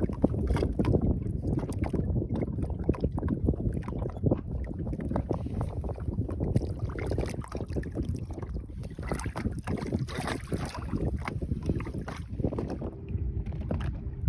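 Wind buffeting the microphone on a small fishing boat: a steady, uneven low rumble with many small knocks and handling clicks.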